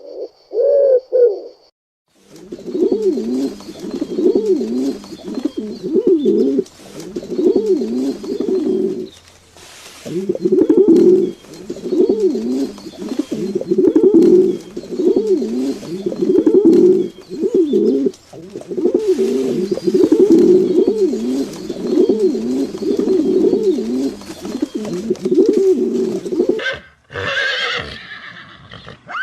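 Pigeons cooing in a long series of low, rolling phrases of about a second each, with brief breaks. Near the end a horse whinnies.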